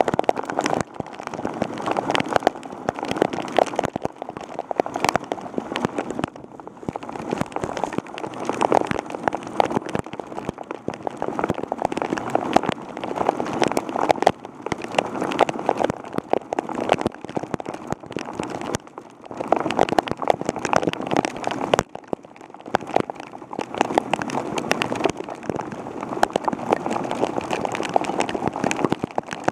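Heavy rain beating directly on an action camera's housing, heard as a dense patter of drops striking right at the microphone. It swells and eases in waves throughout, with a few brief lulls.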